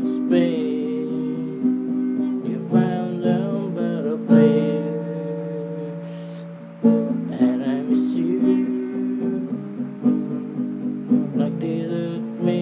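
Acoustic guitar strummed in rhythm, its chords ringing between strokes. About halfway through, a chord is left ringing and fading for a couple of seconds, then the strumming starts again with a hard stroke.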